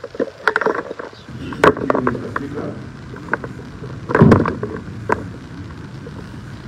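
Irregular knocks and rustling bumps, with one loud low thump about four seconds in.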